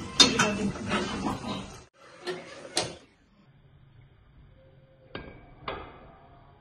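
A woman's voice briefly, then metal cookware knocks: a kadai and its lid being handled on a gas stove, with two sharp ringing metal clinks about half a second apart near the end.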